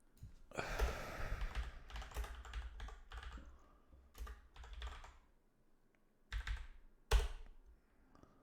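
Typing on a computer keyboard: a quick run of keystrokes, then a few separate short bursts of presses, with one sharp, loudest key strike near the end.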